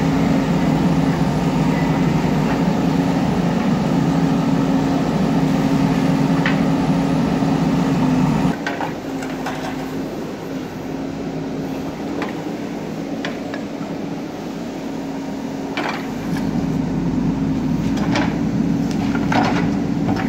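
JCB earthmoving machine's diesel engine running under load, dropping back sharply about eight seconds in and building up again near the end. Scattered metallic clanks and knocks sound over it.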